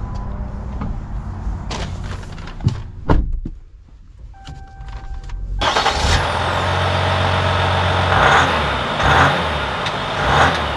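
A Ram 1500's 3.0-litre V6 EcoDiesel engine running. Early on there are two sharp thumps and a steady electronic tone lasting about a second. After a cut the engine is heard up close from outside the truck: a steady low running sound with several short surges.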